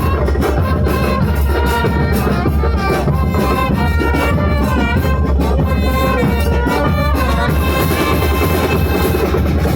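Loud, continuous music with instruments and drums.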